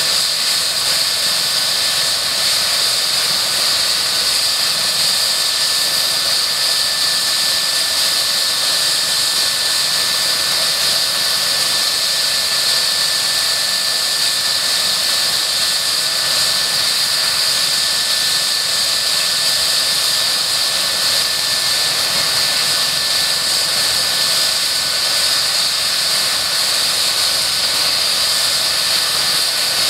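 Eurocopter EC135 twin-turbine helicopter running on the ground with its rotors turning: a steady high turbine whine that holds at one pitch and level throughout.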